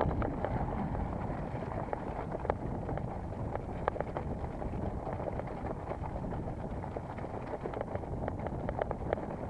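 Mountain bike being ridden: steady wind rush on the microphone with tyre noise, and frequent short clicks and rattles from the bike over rough ground.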